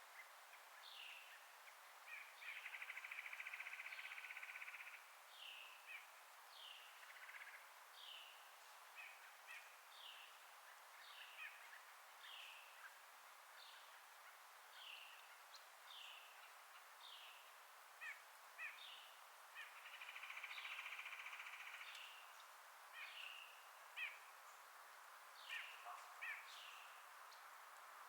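Faint birdsong: short downward-slurred chirps repeated about once a second, and twice a buzzy trill lasting a few seconds, over a soft steady hiss of forest ambience.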